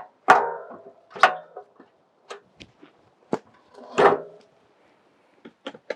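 Metal parts of a GRIT Freedom Chair, an off-road lever-drive wheelchair, clanking and clicking as it is assembled. There are three louder clatters with a brief ring, and sharp single clicks in between.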